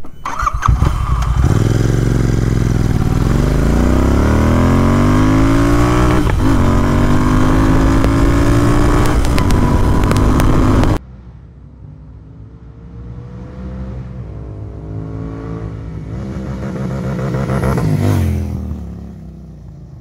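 Royal Enfield 650 parallel-twin motorcycle on an aftermarket exhaust, accelerating hard through the gears, heard from the rider's seat: the engine note climbs and drops at each upshift. After a sudden cut about eleven seconds in, a motorcycle engine comes up the road, growing louder until near the end, then fading.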